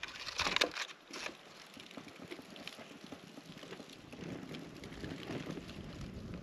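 Small wood campfire in a stone ring crackling, with a few knocks and clatters of sticks being laid on it in the first second or so. A low, steady rush comes in about four seconds in.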